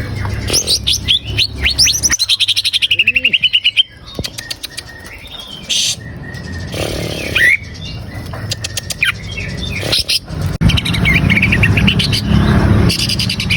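Cucak ijo (green leafbird) singing: fast runs of sharp repeated notes and chattering, warbling phrases, with a quieter stretch in the middle and the song picking up again near the end. A low steady hum runs underneath and grows louder near the end.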